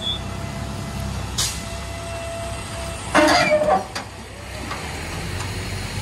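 Peterbilt Heil front-load garbage truck running with a steady low engine rumble and a thin steady whine. A sharp click comes near the middle of the first half, and a short, loud burst of noise about three seconds in.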